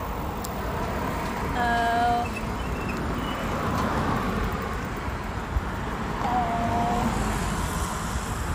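Wind rumble on the microphone and road noise from a moving bicycle ride, with cars passing close by. Two brief held notes sound, one about two seconds in and another about six and a half seconds in.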